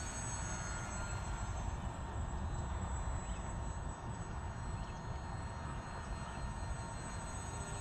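Micro Ebbi RC plane's Suppo 2204 brushless motor and 7-inch propeller whining in flight as a thin high-pitched tone that shifts slightly in pitch as the plane passes, over a steady low wind rumble on the microphone.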